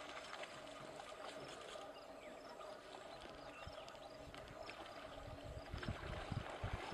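Water splashing and sloshing as several animals thrash through shallow water, with short high chirps repeating faintly. The splashing grows heavier near the end.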